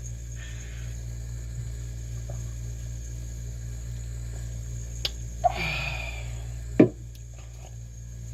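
Steady low hum, with a short pitched vocal sound of about a second near the middle and a single sharp knock just after it.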